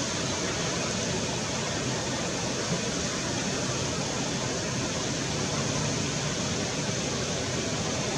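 Steady rushing of a shallow stream flowing over a stony bed.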